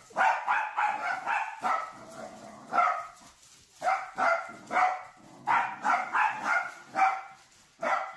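Small dog barking at a push broom, high-pitched barks coming in quick runs of several with short pauses between.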